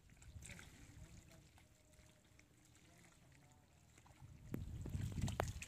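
Wet mud and shallow water squelching and sloshing underfoot while wading through a soft mud flat, faint at first and loudest from about four to five and a half seconds in, with a few sharp wet clicks.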